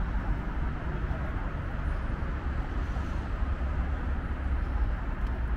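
Steady street traffic noise from a busy road: an even, continuous low rumble with no single standout event.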